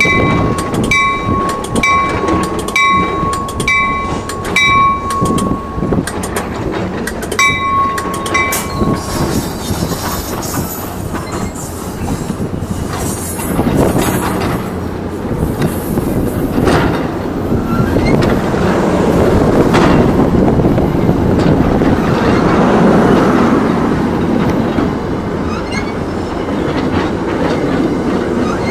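NJ Transit commuter train's bell ringing in steady strokes about twice a second, stopping after about six seconds and sounding briefly again a little later. Train running noise with wheels clattering over the rails continues underneath, growing louder in the second half as a train rolls alongside the platform.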